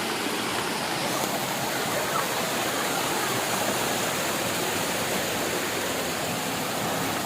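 Steady rush of water from a waterfall and its stream, an even hiss without breaks.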